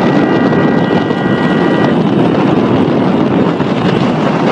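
Engine and wind noise of a vehicle driving fast over desert sand, a loud steady rush with wind buffeting the microphone. A thin steady high tone sounds through the first two seconds, then stops.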